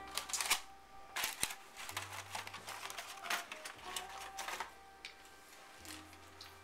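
Irregular clicks, clatter and rustling, thick for the first few seconds and then dying away, over faint background music.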